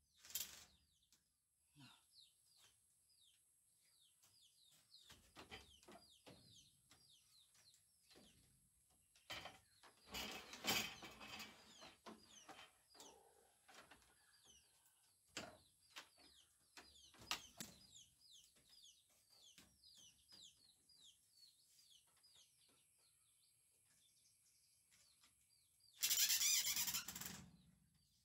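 Small birds chirping steadily in the background, with scattered knocks and a noisy clatter about a third of the way in. Near the end a cordless drill runs in one short burst of about a second and a half, driving a fastener into the bamboo wall panel and frame.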